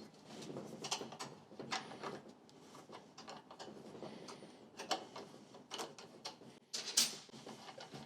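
Irregular metallic clicks and small knocks of a tool working the 10 mm nut on a Honda small engine's fuel tap sediment bowl, as the bowl is undone and taken off; one sharper click about seven seconds in.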